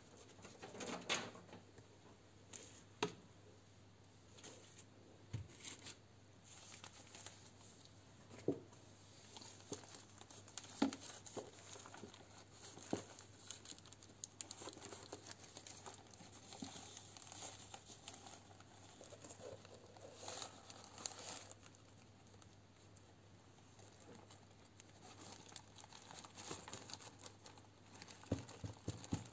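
Faint crinkling of a thin plastic bag and dry rustle of potting soil as the soil is tipped out into a plastic tub and fingers dig through it, with scattered small clicks and knocks against the tub.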